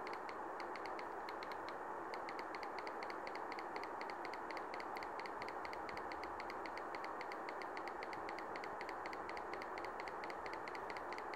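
Rapid, even button-press clicks, about five a second, as the media player's screen-scale setting is stepped one notch at a time, over a steady low hiss.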